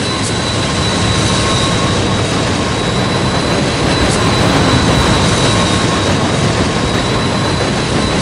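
HO scale model freight train running past, led by two diesel locomotives: a steady engine rumble with rolling wheel noise and a thin, steady high whine over it.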